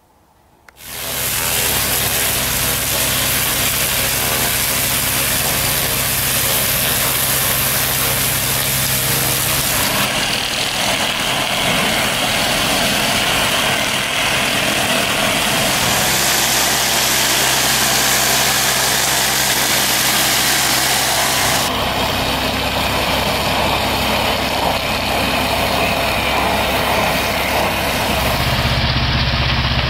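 Falch Scater 5 rotary surface cleaner blasting paving stones with 500-bar water jets: a loud steady hiss over the steady hum of the high-pressure pump's engine. It starts about a second in, and its tone shifts abruptly a few times.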